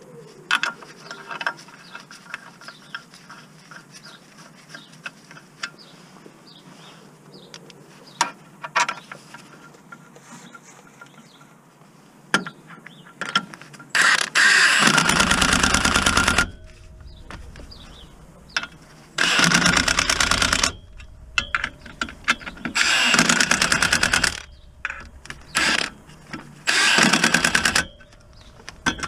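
Power impact wrench running in four short bursts in the second half, the first and longest about a second and a half, driving in the clutch pressure-plate bolts on the flywheel. Before that, light clicks and knocks of bolts and parts being handled.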